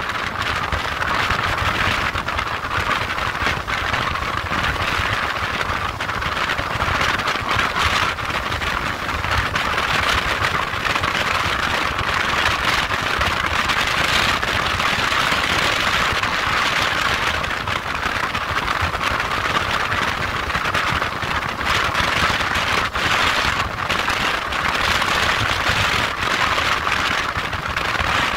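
Steady rushing wind and road noise from a motorcycle cruising at road speed, with no clear engine note standing out.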